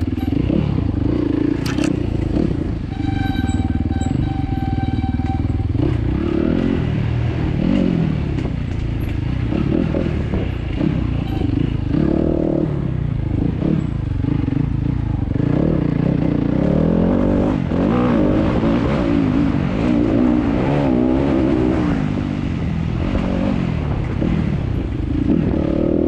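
Enduro motorcycle engine ridden hard over rough ground, revs rising and falling constantly, with knocks and rattles from the bike over the stones.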